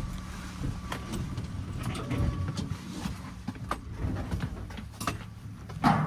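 Irregular knocks, clicks and shuffles of someone moving through a small aircraft's cabin to its door, over a faint steady hum; one louder knock comes near the end.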